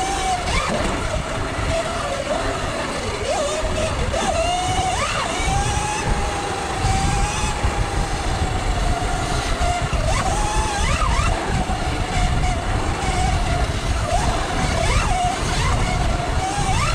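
Electric dirt bike being ridden. Its motor and chain drive give a steady whine that drifts up and down in pitch with speed, broken by a few short rising whines under throttle. Wind and tyre rumble on the microphone run underneath.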